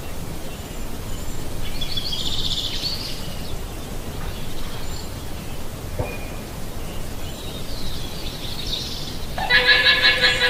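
A llama giving a loud, high-pitched call about a second before the end, over steady background noise, with fainter high-pitched calls earlier on.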